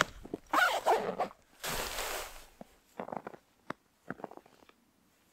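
A backpack and camera being handled: two loud rustling scrapes in the first couple of seconds, then footsteps crunching in light snow over grass.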